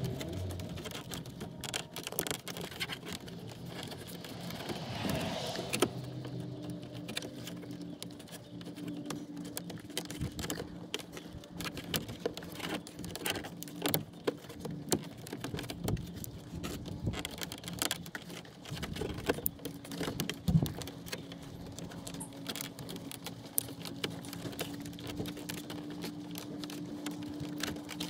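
Scattered small clicks and taps of hands working a rubber trim ring onto a 1996 Toyota Tacoma's ignition lock cylinder. A steady low hum runs underneath from about six seconds in.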